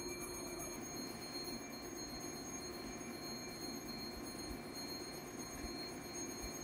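Steady ambient hum and hiss with a few faint constant tones, and no distinct event.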